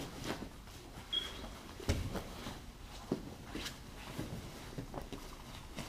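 Scuffling of two grapplers drilling on vinyl mats: gi fabric rustling and a few dull thumps of bodies and limbs hitting the mat, the loudest about two seconds in, with one short high squeak about a second in.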